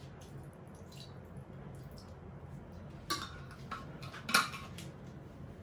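Water poured from a glass jug into a non-stick frying pan, with faint light ticks, then two sharp clinks of cookware being handled, at about three and four and a half seconds in.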